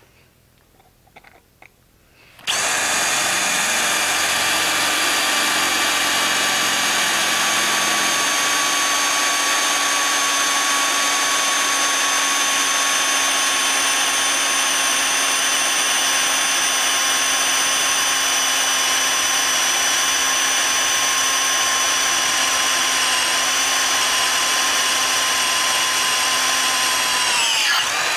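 Cordless drill with a twist bit boring a rivet hole through the boss of a steel tong half clamped in a vise. The motor starts about two and a half seconds in, runs at a steady pitch, and winds down just before the end as it stops.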